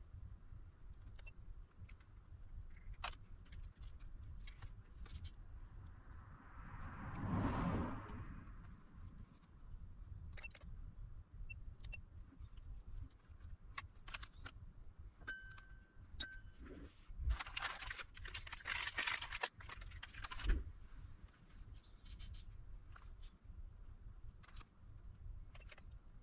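Small clicks and taps of tools handled on a workbench over a low steady hum. About seven seconds in, a broad whoosh swells and fades, and from about seventeen to twenty seconds there is a louder scratchy, rustling stretch with a few knocks.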